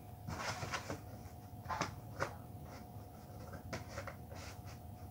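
Craft materials being handled: scattered light clicks, taps and rustles, over a faint steady hum.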